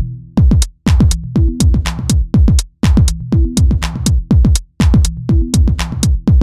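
Electronic background music with a steady drum-machine beat and bass line, cutting out briefly about every two seconds.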